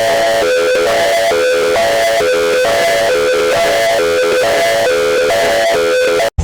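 Harsh, distorted alarm tone that alternates between two pitches about twice a second, in the style of a fan-made Emergency Alert System alarm. It cuts off abruptly near the end.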